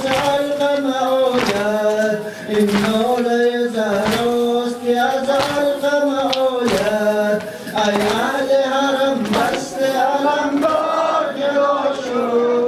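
Male voices chanting a Muharram noha (mourning lament) in long held notes, over a steady beat of sharp strikes about once every second and a half from the mourners' rhythmic beating.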